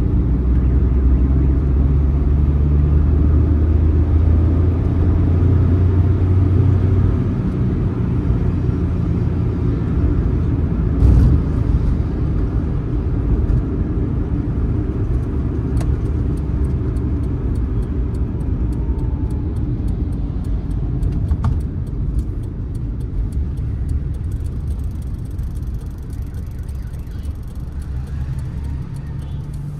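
Suzuki Mehran's 800 cc engine heard from inside the cabin while driving, a steady low drone with road noise. It is strongest for the first seven seconds, then eases and grows gradually quieter as the car slows in traffic, with a single thump about eleven seconds in.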